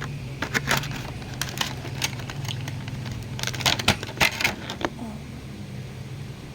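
Clicks, taps and crackles of small plastic toy parts and packaging being handled, thinning out near the end, over a steady low hum.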